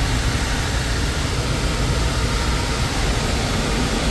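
Steady, even rushing noise of a running Trane gas furnace, its burner and blower on low fire.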